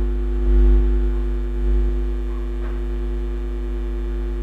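Steady electrical mains hum: a low, unchanging drone made of several fixed tones, with no speech over it.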